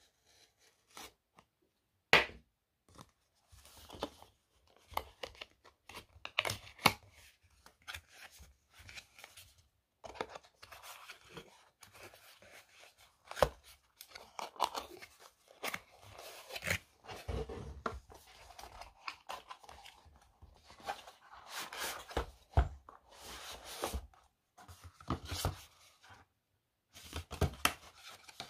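Hands opening and unfolding a thin white cardboard box: irregular scraping and crinkling of paperboard, broken by sharp snaps as flaps and tabs are pulled free.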